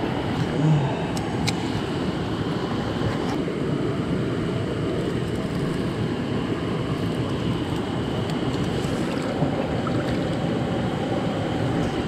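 Steady rush of a mountain river's flowing water, even and unbroken, with a couple of faint clicks near the start.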